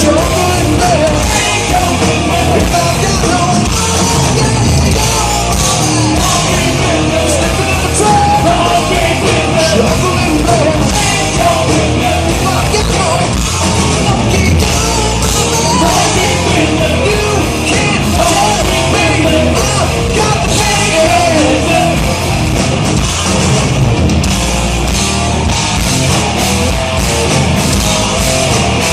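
Loud rock song played by a band, with yelled singing over the instruments.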